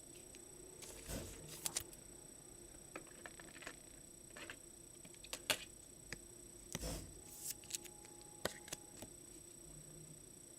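Trading cards and their packs being handled on a table: scattered soft rustles and about a dozen sharp little clicks and taps, the loudest about halfway through.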